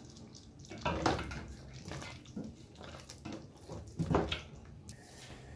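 Thick stew stirred in a pot with a slotted spoon: about four separate wet, sloshing strokes, the loudest about four seconds in.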